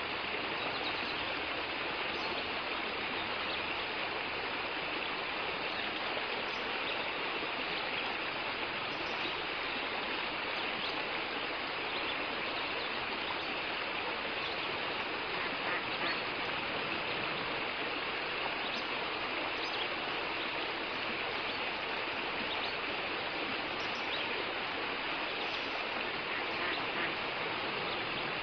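Steady, even outdoor rushing noise, like running water or wind, with a few faint high chirps here and there.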